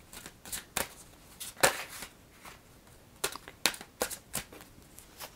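A deck of tarot cards being shuffled and handled: irregular soft slaps and swishes of card stock, the loudest about one and a half seconds in.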